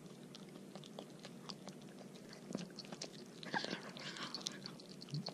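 A dog chewing a chicken foot: a run of faint, irregular crunches and clicks as it bites through the bones.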